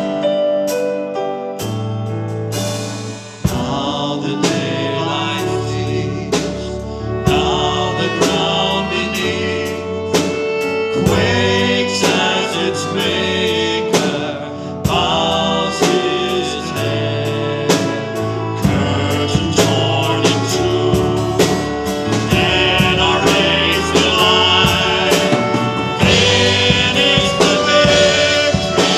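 Worship song: voices singing over a band with bass, keyboard and a steady drum beat.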